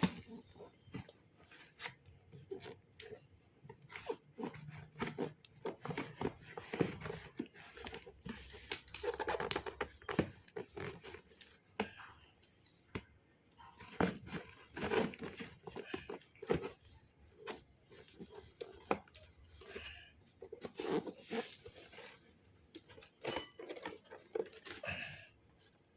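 Packaging being worked open by hand: irregular tearing, crinkling and scraping with many small clicks and knocks, a stubborn package being pried and pulled apart.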